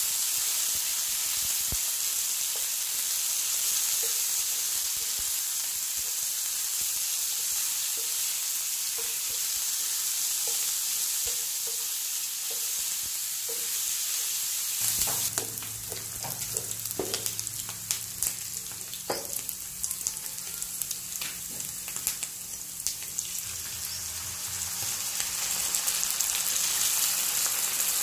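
Cubed pork sizzling as it fries in hot oil in a pan, stirred with a spatula. About halfway through, the sizzle drops a little and a low hum and a run of sharp clicks and scrapes come in; the sizzle then builds again near the end.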